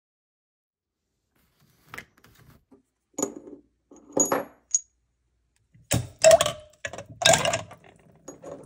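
Zinc-plated steel bolts clinking against a glass beaker, a few separate clicks with short high pings, then a louder clatter about six seconds in as they go into the acid bath. The glass beaker is cracking.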